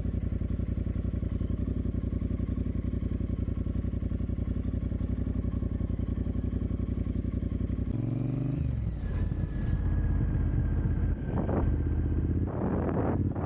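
Triumph Bonneville Speedmaster's 1200 cc parallel-twin engine idling steadily through a Jekill & Hyde electronically adjustable exhaust with its valve set to closed. About eight seconds in there is a click and the engine note changes, running louder and less steadily.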